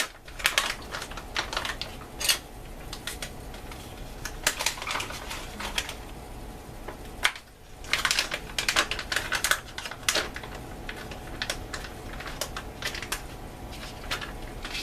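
A spoon stirring a drink in a plastic MRE beverage bag, making irregular clicks and crinkling as it works to break up clumps of powdered beverage mix that have not dissolved. The stirring pauses briefly about seven seconds in.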